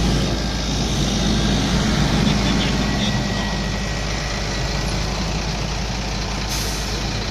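Heavy truck and tractor diesel engines running steadily under load during a tow recovery of a stuck garbage truck. A brief air hiss near the end.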